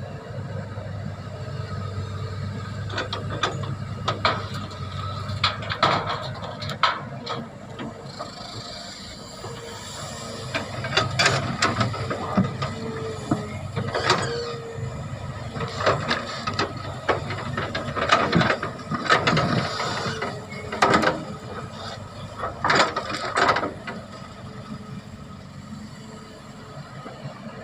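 Excavator working: its diesel engine runs steadily underneath while metal clanks and squeals come again and again at irregular intervals through most of the stretch, dying away near the end.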